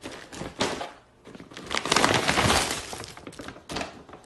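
Clear plastic snack bag and paper gift bag rustling and crinkling as they are handled: a few short rustles, then a long burst of crinkling in the middle.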